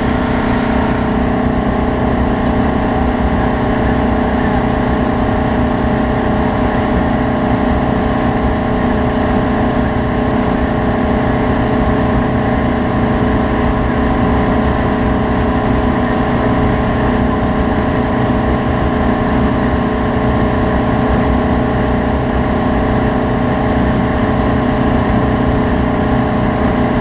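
Wake boat's inboard engine running steadily under way, mixed with the rush of water churning in its wake.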